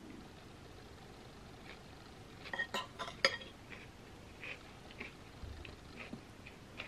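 Close-up chewing of a mouthful of pasta, with a metal fork clinking against a ceramic bowl a few times around the middle, the sharpest clink about three seconds in.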